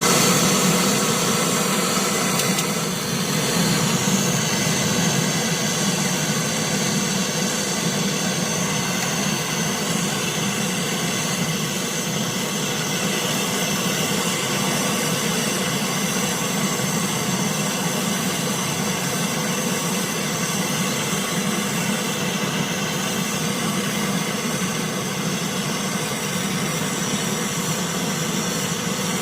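A steady machine-like hum with a hiss, unchanging throughout apart from a brief dip about three seconds in.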